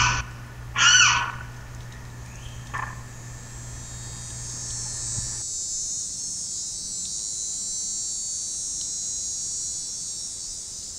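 Limpkin giving two loud wailing calls, one at the start and another about a second in, with a fainter call a little later. From about three seconds in, a steady high insect buzz swells and holds, and a low hum cuts off about five seconds in.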